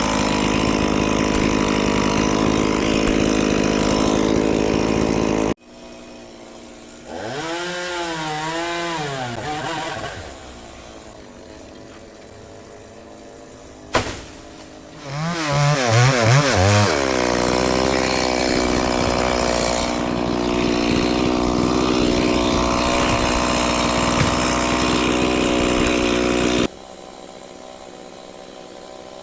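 Two-stroke Stihl chainsaw at high speed. It stops abruptly about five seconds in, revs up and down with its pitch swinging, and after a sharp click gives a few quick throttle blips. It then runs steadily at high speed again until it stops abruptly near the end.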